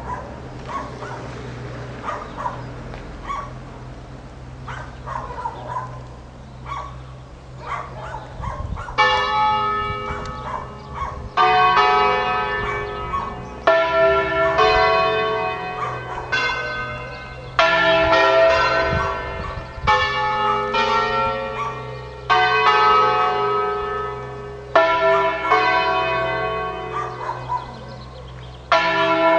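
Ambrosian church bells swinging in their tower: after a few seconds of scattered faint sounds, with a dog barking, loud bell strikes start about nine seconds in and follow about every two and a half seconds, each ringing on until the next.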